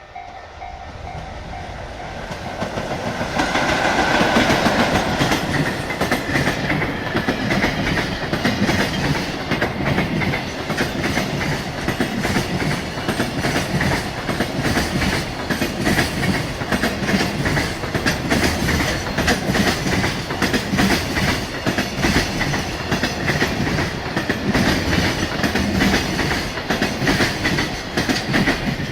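JR Freight EF66 electric locomotive passing over a level crossing about three to four seconds in, followed by a long string of container wagons whose wheels clatter rapidly over the rail joints. A level-crossing warning bell rings with a pulsing tone at the start.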